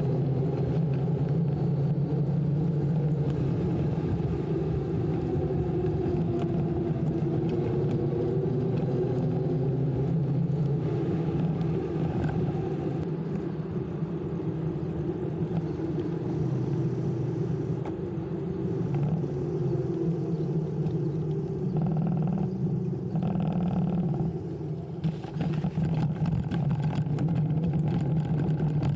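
An e-bike with a TOSEVEN DM01 mid-drive motor being ridden: a steady low drone from the motor and tyres that wavers a little in pitch and drops briefly near the end.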